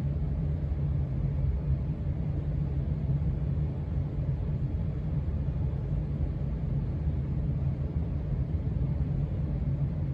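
1993 Casablanca Stealth ceiling fan running at speed 5 of six: a steady low rumble of the motor and moving air.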